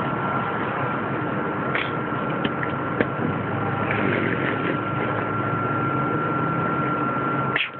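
Steady mechanical rumble with a constant high-pitched hum over it, a few faint clicks, and a brief drop in level near the end.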